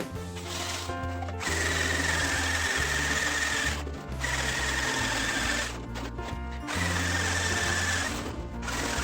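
Handheld electric power tool working sheet metal in three runs of about a second and a half each, with short pauses between, its whine sagging slightly during each run; background music plays underneath.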